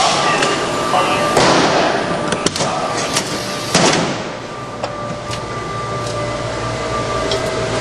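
Knocks and bangs of someone climbing the steps into a fire engine's cab. The loudest bang, about four seconds in, is the cab door shutting; after it the sound turns duller, with a low hum from the cab. A steady high tone runs underneath.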